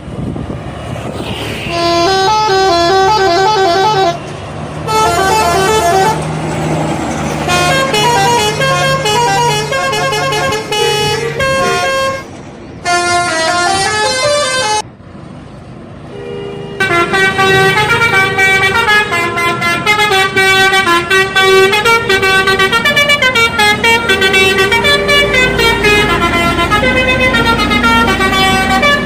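Telolet bus horn: a multi-trumpet air horn playing quick melodic runs of stepped notes. It comes in several bursts with short pauses through the first half, then one unbroken tune for the last dozen seconds. The bus engine runs steadily underneath.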